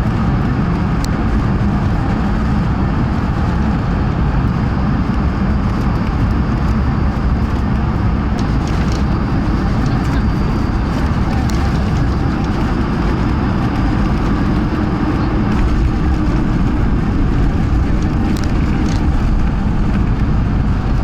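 Steady, loud low rumble inside the cabin of an Airbus A220-300 on a turbulent approach: Pratt & Whitney PW1500G geared turbofan and airflow noise, with a few faint clicks and rattles scattered through. The noise gets slightly louder near the end.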